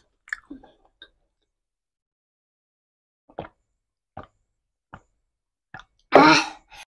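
Water gulped down from a glass: four separate swallows, each under a second apart, then a loud breathy exhale just after the drink. A few small mouth clicks come near the start.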